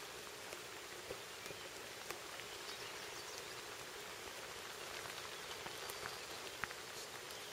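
Light rain falling on pond water and bankside plants: a faint, steady hiss with scattered ticks of single drops.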